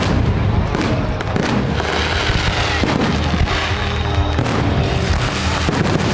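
Fireworks display: several booms of aerial shells bursting, with crackling in between, over music playing.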